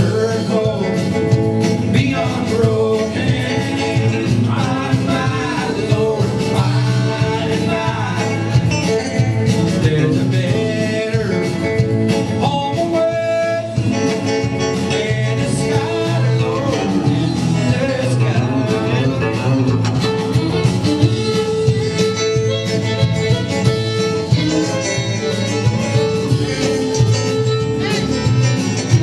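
Live band playing a song: a man singing lead over a strummed acoustic guitar, with electric guitar and drums.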